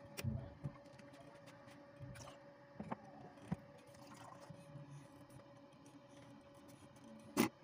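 Small clicks and handling knocks of hand tools and thin wire being worked on a cutting mat, with a sharp snap near the end as a wire stripper closes on red hookup wire. A faint steady hum runs underneath.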